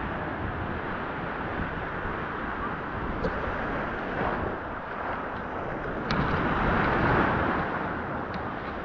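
Small surf waves washing up the sand and foaming around a microphone held at the waterline, with wind buffeting the microphone. A bigger wash swells up about six seconds in.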